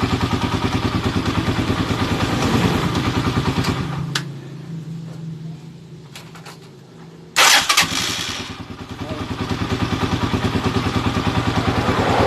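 Motorcycle engine idling with an even beat after a valve clearance adjustment. It shuts off about four seconds in, is restarted with a sharp burst a few seconds later, catches quickly and settles back into an idle.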